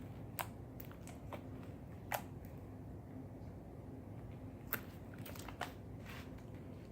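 Fluffy white slime being folded and kneaded by hand with blue acrylic paint, giving scattered sharp clicks and pops, a few early and a cluster about five seconds in.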